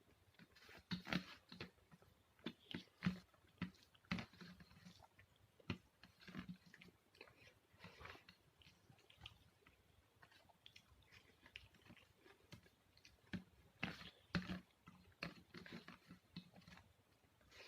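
Close-miked eating sounds of a person eating rice with potato and onion: irregular chewing and lip smacks, with sharper clicks now and then.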